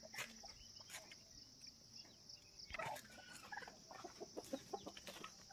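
Faint clucking of free-ranging domestic chickens, a few soft clucks about three seconds in and again near the end, over a steady high-pitched hiss.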